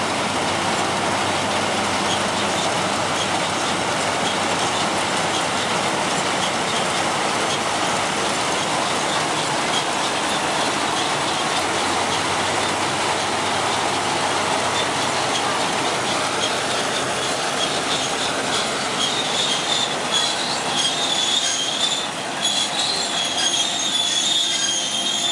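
NS 920 4x4 combine harvester running close by, its engine and machinery a loud, steady, dense noise. From about three-quarters of the way through, a wavering high-pitched squealing joins in.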